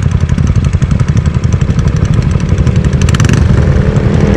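Wind buffeting the microphone of a camera riding on a moving Honda LEAD125 scooter, over the scooter's 125 cc single-cylinder engine and road noise. A brief rattle comes about three seconds in, and an engine note rises in pitch over the second half.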